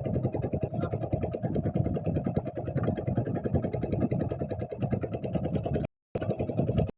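Small boat engine running steadily with a fast, even pulse. The sound cuts out briefly about six seconds in.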